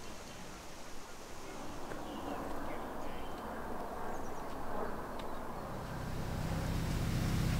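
Outdoor ambience by a canal lock with a few short bird calls, then a boat engine's low steady running sets in near the end and grows louder.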